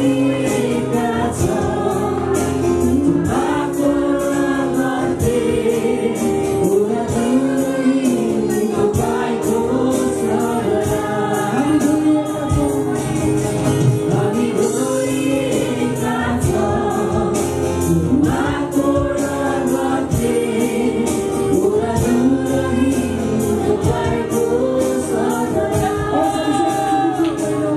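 Live Nepali Christian worship song: several singers singing together over a band with acoustic guitar and a steady, fast ticking percussion beat.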